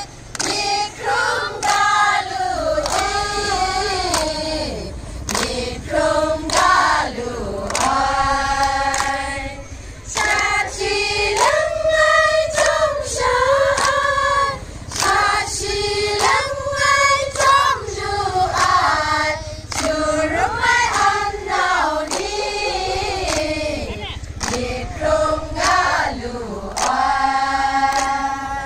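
A group of women singing a song together in unison, with hand claps.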